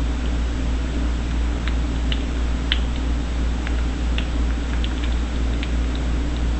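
An African grey parrot making small, scattered clicks and ticks with its beak, about a dozen at irregular intervals, over a steady low hum.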